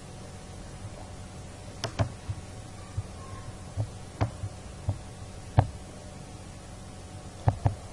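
Computer mouse clicking as folders are opened: single clicks and two quick double-clicks, one about two seconds in and one near the end, over a steady low hum.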